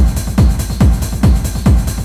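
Electronic dance music with a steady, driving kick drum at about two and a third beats a second.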